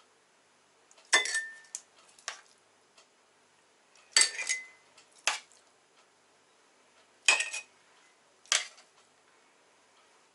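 Metal kitchen tongs clinking against a stainless-steel pot while lifting fried onion out into jars: about six sharp clinks a second or two apart, a couple of them ringing briefly.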